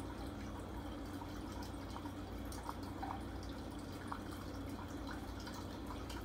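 Aquarium water trickling and dripping, with a steady low hum and scattered faint ticks of drops and bubbles.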